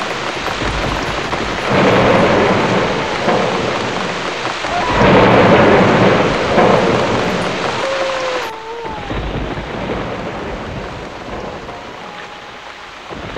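Heavy rain with rumbling thunder, swelling loudest about five seconds in. The sound turns duller and quieter about two thirds of the way through.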